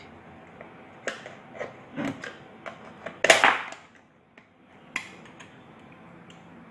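Screwdriver tip clicking and scraping against the plastic body of an electric iron while prying off the label plate on its handle: a run of light clicks, with a louder, longer scrape about three seconds in.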